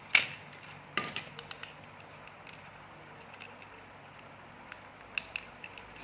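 Small hand-tool clicks and taps on a circuit board: two sharp clicks about a second apart near the start, then scattered fainter ticks.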